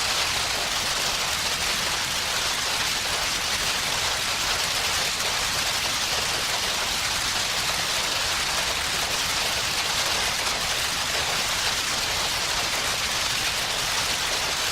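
Designed sci-fi electric field sound effect: a dense, steady crackling hiss of particles, like a waterfall, with most of its energy high up.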